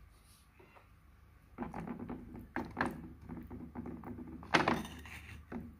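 A metal spoon stirring and scraping a wet clay paste inside a terracotta clay pot, knocking against the pot's sides, with one sharp knock about halfway through. It starts about a second and a half in.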